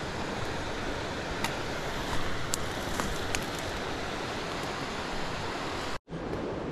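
Steady rushing of river water, with a few faint clicks. The sound breaks off for an instant about six seconds in.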